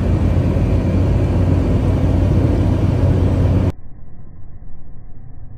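Road and wind noise of a moving car, a loud steady rush over a low engine-and-tyre rumble. It cuts off abruptly about three and a half seconds in, leaving a quieter, muffled low rumble.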